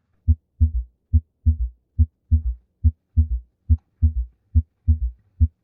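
Recorded heart sounds with a third heart sound (S3 gallop): each cycle is a sharp S1 thump followed by S2 and, right after it, a softer extra thump from blood gushing into the ventricle, making a dull three-beat rhythm at about 70 beats a minute.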